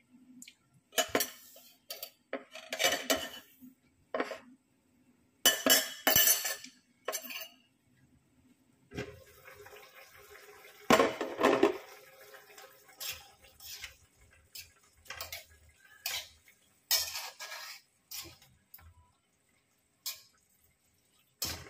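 Metal cookware clattering as the lid is taken off an aluminium wok, then a metal spoon scraping and clinking against the wok as chicken adobo is stirred.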